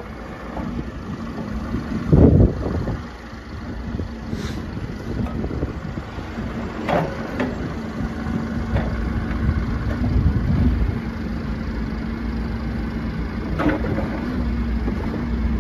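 Bobcat E42 mini excavator's 42 hp Doosan diesel running while the boom, arm and bucket are worked hydraulically, with a steady droning tone under the engine. A few short knocks come through, the loudest about two seconds in.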